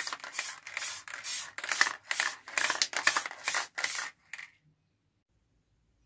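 Aerosol can of varnish in use: a run of short, sharp bursts, about three a second, that stops about four and a half seconds in.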